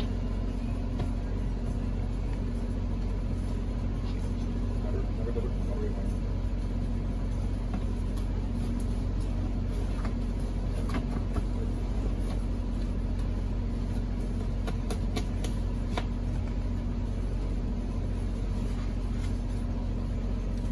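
Steady low rumble with a constant hum, from a running machine, with a few light clicks and taps of hand tools on the windshield glass and its rubber seal, mostly in the middle stretch.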